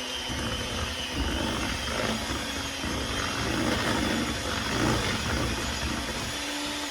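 Electric mixer running steadily, its beaters churning a thick pudding and cream cheese mixture in a bowl.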